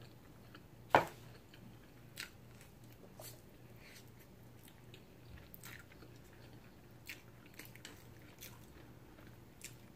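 Quiet close-up eating sounds: chewing and small wet mouth clicks over a mouthful of hard-boiled egg, then spicy instant noodles. One sharp knock about a second in and a lighter one about two seconds in.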